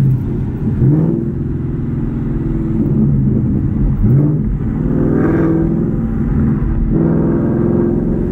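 Ford Mustang GT's 5.0 V8 heard through a C&L axle-back muffler-delete exhaust with an H-pipe, running loud under acceleration. The engine note rises and dips a few times.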